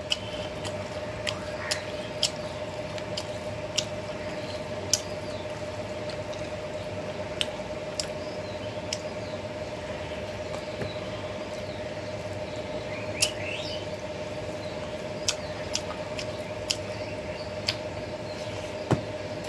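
Close-miked eating sounds of a mouthful of rice and prawn curry eaten by hand: irregular wet mouth clicks and smacks while chewing, with a few faint squeaks about two-thirds of the way in. A steady low hum runs underneath.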